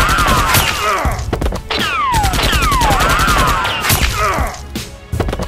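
Video-game-style automatic gunfire sound effect: a rapid string of shots layered with falling, whining pitched sounds, the same burst played twice, fading out near the end.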